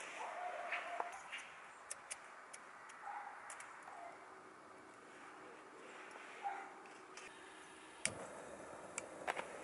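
Light metal clicks and rattles of a compact folding camping gas stove and metal grill parts being unpacked and unfolded, with a sharper click about eight seconds in and another a second later. A few faint short calls sound in the background.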